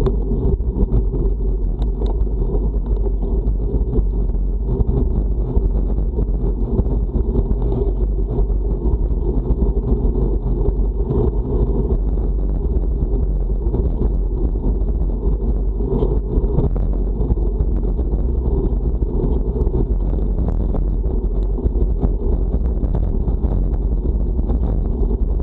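Wind noise on the microphone of a road bike riding into a strong headwind: a steady, loud low rumble.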